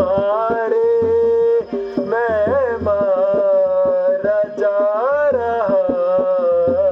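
Harmonium accompanying a voice singing long, wavering held notes of a devotional song.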